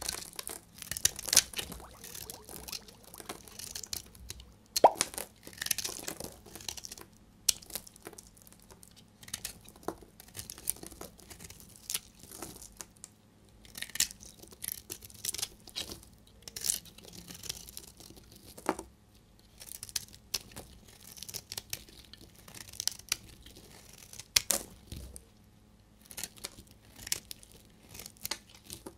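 A snap-off utility knife blade shaving and cutting into a dry bar of soap: a steady run of short scraping strokes with sharp crunchy cracks as curls and flakes break off.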